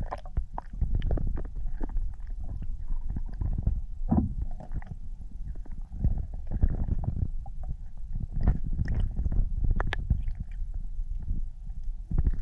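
Muffled water sounds from a submerged camera: an uneven low rumble with many scattered knocks and clicks.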